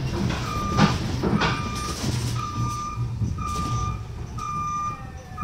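An electronic warning beeper sounding about once a second, each beep short and at one steady high pitch, inside a bus cabin over its low rumbling hum. Two sharp knocks come about a second in, the first the loudest sound.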